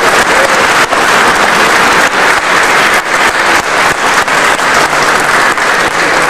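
Audience applauding: a crowd of people clapping, dense and steady.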